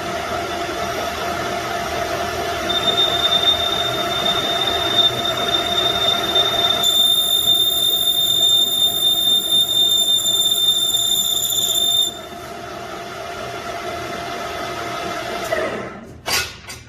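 Manufacturing machinery running with a steady whine and a high metallic squeal that starts about 3 s in. The squeal grows louder and shriller from about 7 s to 12 s, then the machine runs on more quietly and stops near the end with a couple of knocks.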